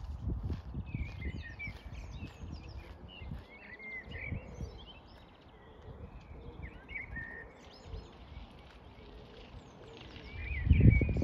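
Small songbirds chirping and trilling steadily in the background, over a gusty low rumble of wind on the microphone that is strongest at the start and swells again near the end.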